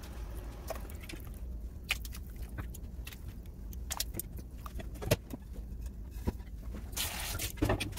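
Pieces of raw beef being dropped by hand into an aluminium pot of water: scattered splashes, knocks and clinks against the pot, over a low steady hum.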